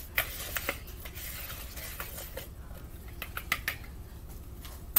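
A spoon clicking and scraping against a plastic mixing bowl as spices are stirred into flour: a quick run of light clicks over the first couple of seconds, then a few scattered knocks.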